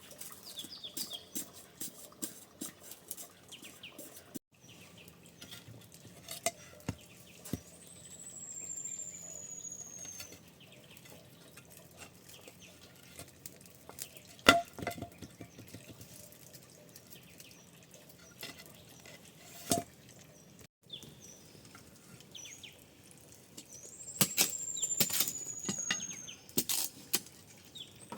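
Scattered light clicks and knocks, with one sharp knock loudest about halfway through. Twice a thin, high whistle glides downward, each lasting about two seconds.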